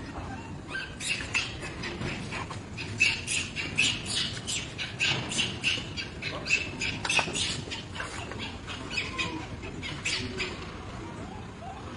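Baby macaque crying in rapid, short, high squeaks, several a second and irregularly spaced, with some louder than the rest.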